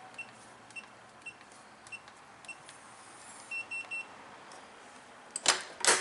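RVLIBRO keyless RV door lock keypad giving a short high beep with each button press, five presses about half a second apart, then a quick triple beep as the code is entered. Near the end come two loud clicks from the lock's handle and latch being worked.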